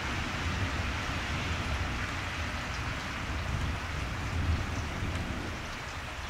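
Steady outdoor background noise: an even hiss with a low rumble beneath it, and no distinct sounds standing out.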